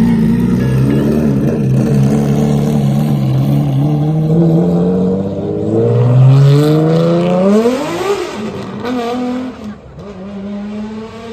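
Car engine running, then accelerating hard with its pitch climbing steadily for several seconds. It is loudest a little past the middle, then drops in pitch and fades away.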